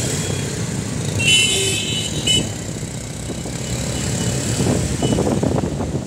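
Street traffic: a steady engine and road rumble, with a vehicle horn sounding for about half a second a little over a second in and once more briefly just after.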